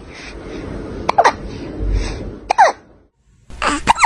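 Kitten hiccuping three times, about a second and a half apart, each hiccup a sharp little click with a short falling squeak.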